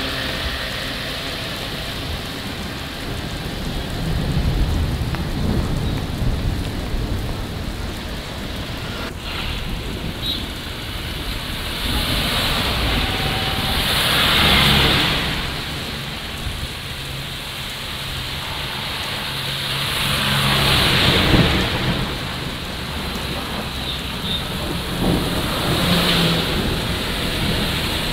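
Traffic driving past on a rain-soaked road: the hiss of tyres through the water swells and fades as each vehicle passes, three big passes standing out, over a steady low engine rumble and falling rain.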